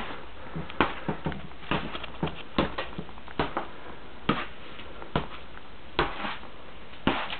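Toy boxing gloves punching a hanging punching bag: irregular thuds about twice a second, some followed by a short rustle as the bag swings.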